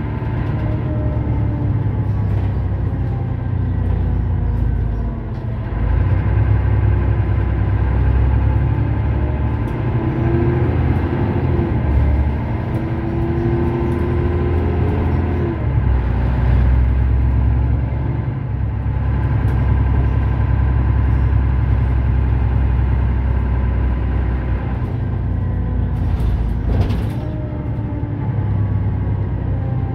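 Mercedes-Benz Citaro O530 city bus's diesel engine idling at a standstill, a steady low rumble, with a brief hiss near the end.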